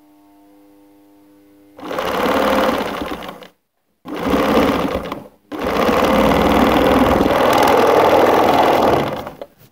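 Bernina 530 Record sewing machine running on a first test stitch through fabric, in three runs starting about two seconds in: two short ones, then a longer one of about four seconds.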